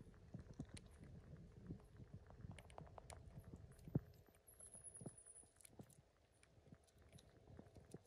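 Near silence with faint scattered clicks and taps, and one sharper knock about four seconds in. A faint high whistle falls in pitch around the middle.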